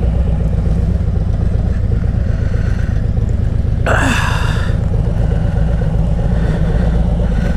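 Motorcycle engine running steadily at low speed, a continuous low rumble, with a brief sharp hissing sound about four seconds in.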